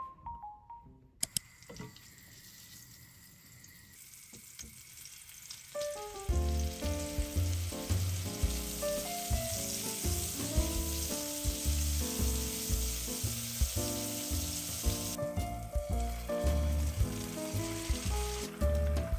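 Ground-meat hamburg steak patties sizzling in oil in a frying pan, a steady hiss that thins for a few seconds near the end. Soft background music comes in about six seconds in.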